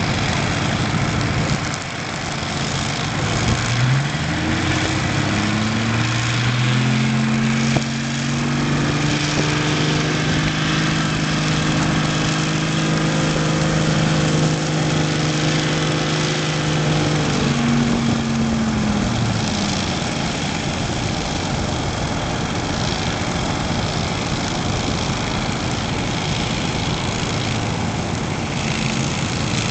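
A steady rushing noise throughout. Over it, an engine hum rises in pitch about three seconds in, holds steady, and winds down about nineteen seconds in.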